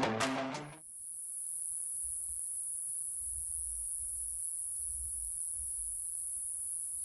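Music stops within the first second. It leaves a steady, high-pitched insect drone in the woods, with faint low rumbles underneath.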